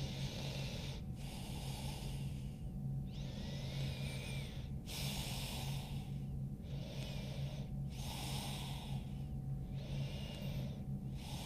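A woman breathing slowly and deeply, about seven breaths in and out in a row, each a rush of air with a short pause between. A faint steady low hum runs underneath.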